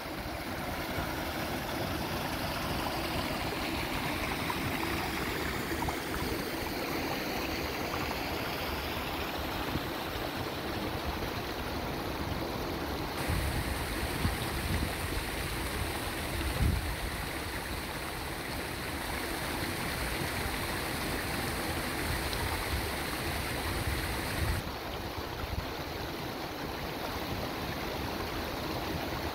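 Running water of a small waterfall and rocky hill stream, a steady rushing hiss that shifts slightly in tone twice.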